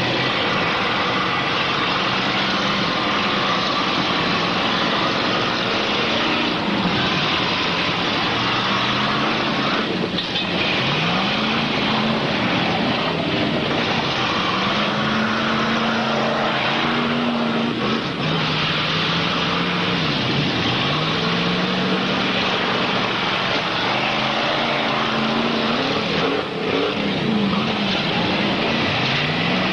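Several demolition-derby cars' V8 engines revving up and down again and again over a dense engine noise, with a few sharp bangs from cars ramming one another.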